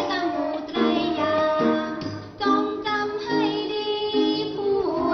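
A Thai children's song about the tone marks, sung over an instrumental accompaniment.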